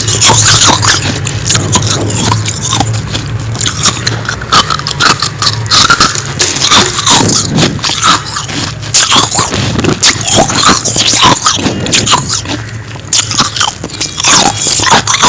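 Close-up biting and chewing of soft, fluffy freezer frost ('humidifier frost'), a dense run of crisp crunches and scrapes with only brief pauses.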